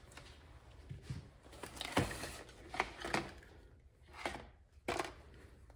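SKYRC corner-weight scale pads and their wires being handled and laid down: several light knocks and clatters with rubbing in between, the loudest about two seconds in.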